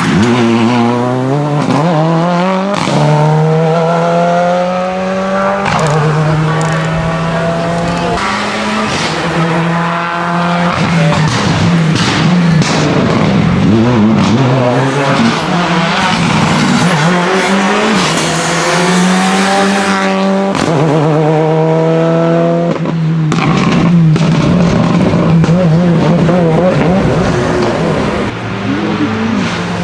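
Renault Clio N5 rally car's engine accelerating hard, the pitch climbing through each gear and dropping at every upshift, again and again, with short sharp cracks between the gears.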